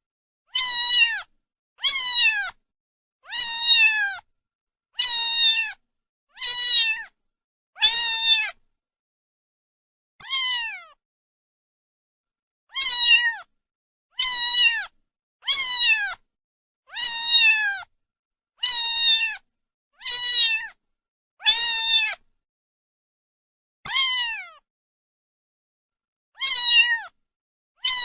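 A cat meowing over and over: about sixteen high meows, each under a second long and falling in pitch at its end, mostly about one and a half seconds apart with a few longer pauses.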